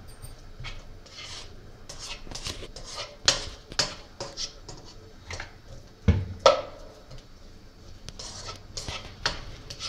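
Spatula scraping and knocking against a non-stick wok while stirring chopped onions in oil, in short irregular strokes, with two louder knocks a little after halfway.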